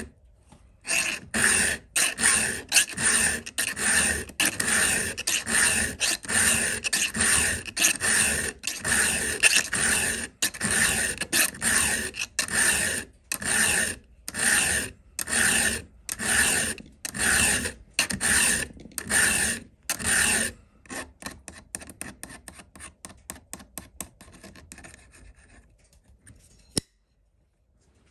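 Round chainsaw file rasping across a rusty, dull chainsaw chain cutter tooth in steady, even strokes, about one and a half a second. The last few seconds bring lighter, quicker strokes that trail off and stop.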